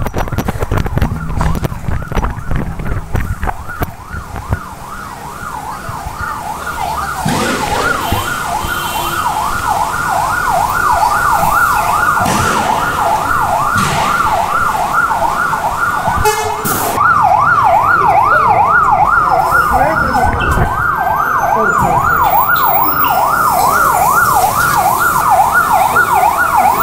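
Emergency vehicle siren wailing quickly up and down, about two sweeps a second, growing louder over the first several seconds and holding strong after that. Street bustle and footsteps are heard beneath it at the start.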